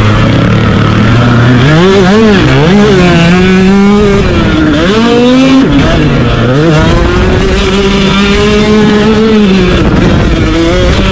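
Motocross bike's engine at race pace, loud, its pitch climbing and dropping several times as the throttle is worked through a corner and down a straight.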